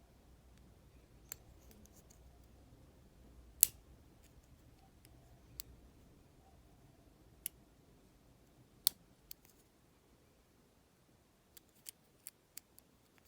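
Sharp little metal clicks of a lock pick and tension wrench working the pins inside a challenge padlock during single-pin picking, scattered one every second or two, the loudest about three and a half seconds in, with a quicker run of clicks near the end.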